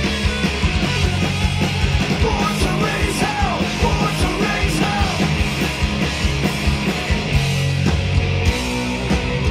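Live hard rock band playing: distorted electric guitars, bass and drums keeping a steady beat, with a singer at the microphone.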